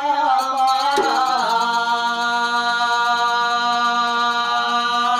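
Oggu Katha folk singing: a voice slides down in pitch about a second in, then holds one long steady note.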